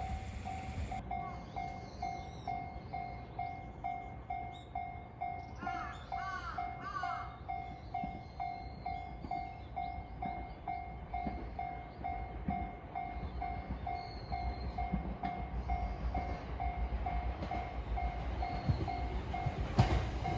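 Japanese level-crossing warning bell ringing in a steady two-tone ding, a little over twice a second, signalling an approaching train. A low rumble grows louder near the end.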